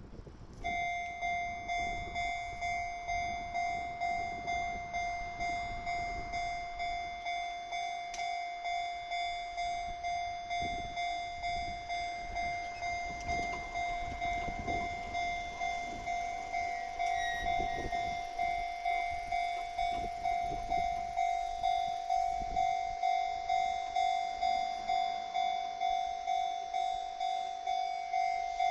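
Railway level-crossing warning alarm ringing, a repeated bell-like ding about one and a half strikes a second, starting suddenly about a second in: the crossing is warning of an approaching train.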